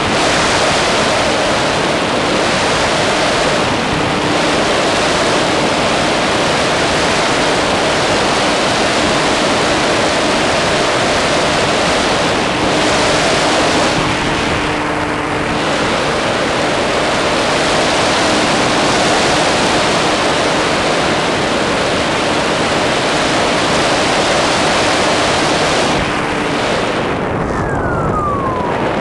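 Onboard sound of a brushless electric RC plane in flight: loud wind rush over the camera's microphone, with the steady hum of the electric motor and propeller, which fades in and out. Near the end the motor's tone falls and then rises.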